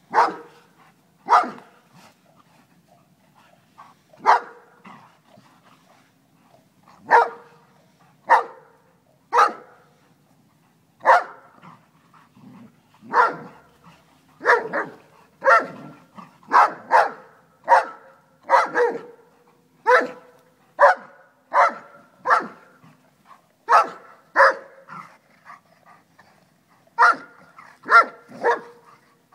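Dog barking repeatedly at another dog lying on its back while the group mobs it: about two dozen short, sharp barks, some single and some in quick pairs, with gaps of a second or more between them.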